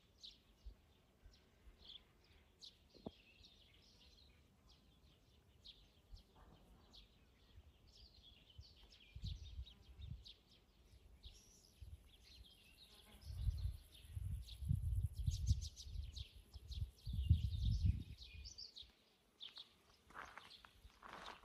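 Small birds chirping and twittering, with many short calls throughout. From about nine seconds in, a run of low, dull rumbles comes and goes and is louder than the birds.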